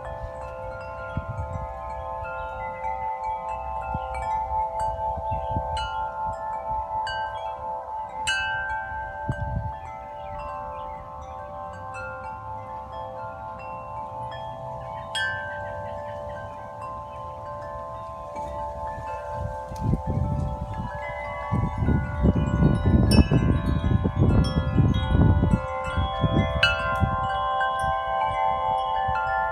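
Several large wind chimes ringing in the wind: deep tones hang on steadily beneath a scatter of higher strikes. About two-thirds of the way through, a gust brings quicker, louder striking, with wind rumbling on the microphone.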